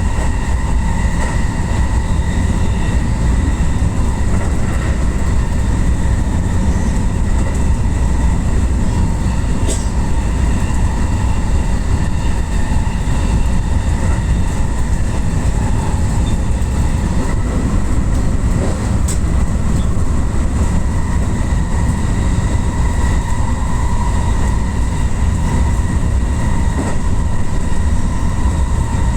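JR West Yamatoji Line rapid electric train running at speed, heard from inside at the front window: a steady low rumble with a constant whine, and two sharp clicks about ten seconds apart.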